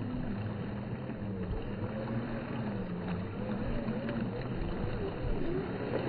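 Axial RR10 Bomber 2.0 RC rock racer churning through a shallow creek: its electric motor and drivetrain whine, rising and falling in pitch with the throttle, over the splashing of water thrown up by the tyres.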